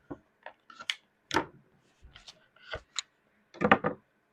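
A series of short, sharp clicks and knocks, about eight in all, with a denser cluster near the end, like small hard objects being handled and set down.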